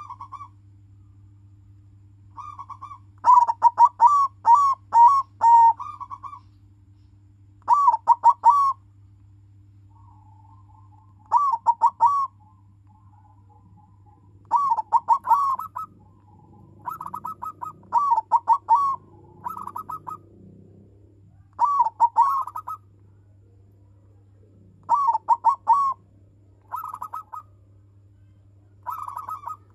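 Silver colour-morph zebra dove (perkutut) cooing: short bursts of quick, rolling coos repeated every few seconds, over a steady low hum.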